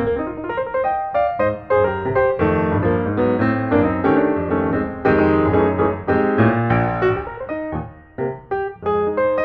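Background piano music: a lively run of many quick notes.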